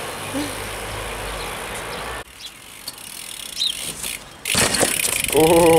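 BMX bike on concrete paving: tyres rolling and a cluster of loud clattering impacts as the bike hops and lands, about four and a half seconds in. A brief loud wavering tone follows near the end.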